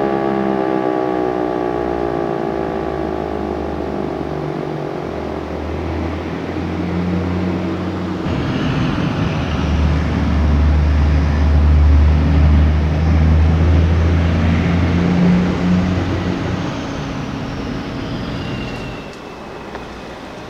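Federal Signal Eclipse 8 electronic siren winding down at the end of its alert, its falling tone fading over the first few seconds. Then a loud low engine rumble from a passing heavy vehicle takes over, strongest in the middle and easing off near the end.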